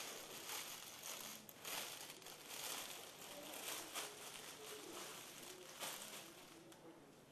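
Plastic bags crinkling and rustling as bagged garments are handled: a continuous crackly rustle made of many small crackles.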